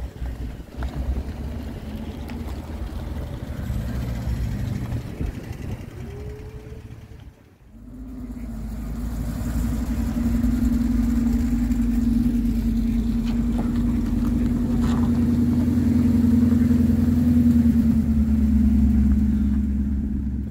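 Cars rolling by at low speed with their engines running: a low engine rumble, then, from about eight seconds in, a louder and steady engine drone as a classic Corvette Sting Ray convertible's V8 passes close by.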